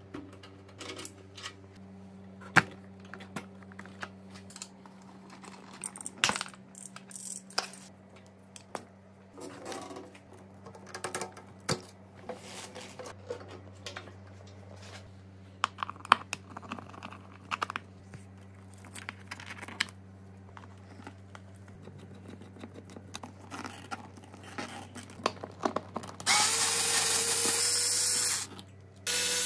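Hand tools working on a motorcycle: scattered clicks, taps and scrapes of a screwdriver and small metal parts. Near the end a power tool runs twice, first for about two seconds, then for about a second.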